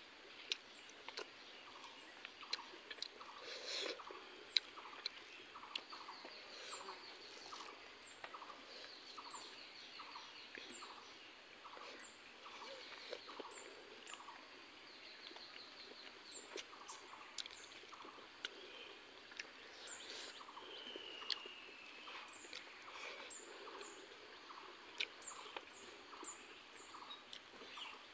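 Close-up eating sounds of a person eating rice and eel curry by hand: sharp mouth clicks and smacks while chewing. Behind them runs a steady background of high chirping.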